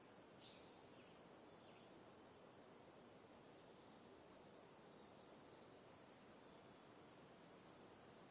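Faint outdoor ambience: a bird's high, rapid trill, about two seconds long, sounds twice, over a soft steady hiss.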